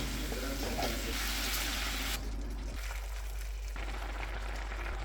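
Liquid being poured into a hot pan of cooking risotto, a hissing pour that stops about two seconds in, leaving a quieter background.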